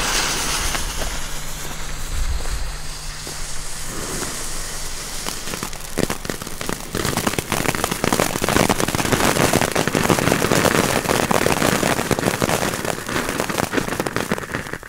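Pyroland Samurai Soul small ground fountain firework, lit by its fuse. It hisses at first, then from about six seconds in sprays sparks with a dense crackling hiss that grows louder and keeps going.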